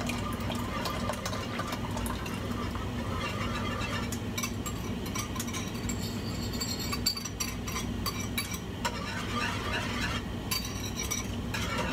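Wire whisk stirring and clinking against a saucepan as milk-gelatin mixture is whisked into hot caramel, a quick patter of ticks that grows busier about four seconds in, over a steady low hum.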